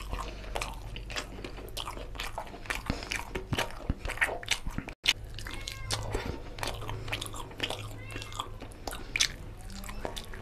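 Close-miked eating by hand: wet chewing, lip smacks and the squelch of fingers in curry-soaked rice, with bites into a chicken curry leg piece. The sound cuts out completely for a moment about halfway.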